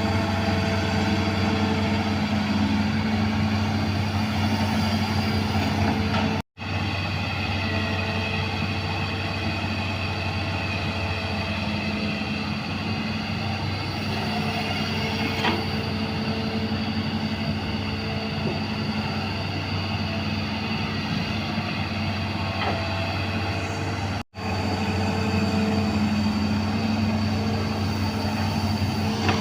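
A 20-ton hydraulic excavator's diesel engine running steadily at working speed, with a light knock about halfway. The sound cuts out abruptly for a moment twice.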